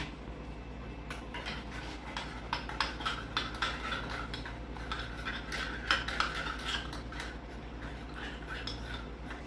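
Metal teaspoon clinking against the sides of a small stainless-steel pot, a quick uneven run of light clinks, while cocoa powder is stirred into hot water.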